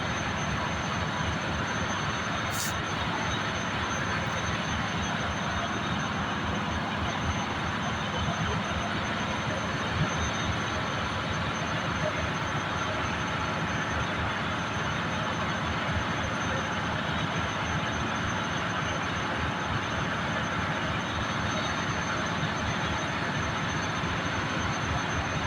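Ship's engine-room machinery running steadily: a constant, unchanging wash of engine noise with a faint high whine over it.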